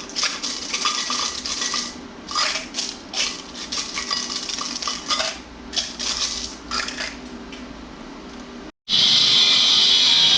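Wheat pennies clinking and jingling against each other as a handful is sorted, in quick irregular clusters that thin out after about seven seconds. Near the end the sound cuts out abruptly and a loud steady hiss takes over.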